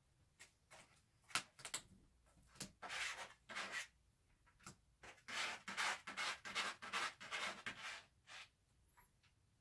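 Cat pawing and scratching at a cardboard box: scraping on the cardboard in short bouts with a few sharp taps, the longest bout lasting about three seconds from about halfway through.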